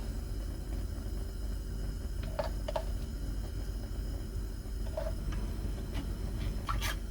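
Steady mechanical hum with a few light clicks, then a quick run of sharp clicks and clatter near the end.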